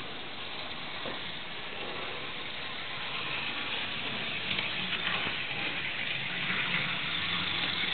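Model diesel shunting locomotive running on its track: a steady whirring hiss of its small electric motor and wheels, growing louder over the last few seconds.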